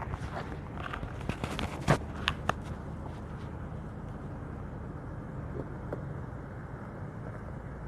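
Footsteps with a few sharp knocks in the first three seconds, the loudest about two seconds in, over a steady low rumble.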